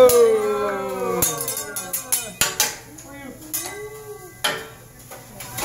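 Hibachi chef's metal spatula and knife clanking and tapping on the steel griddle in a few sharp strikes, scattered through the middle. It opens with a person's loud, long cry falling in pitch, over faint voices.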